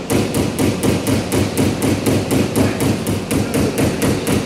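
Hand hammer striking metal in a fast, even rhythm of about four to five blows a second while a fuselage frame is being worked. The blows stop suddenly near the end.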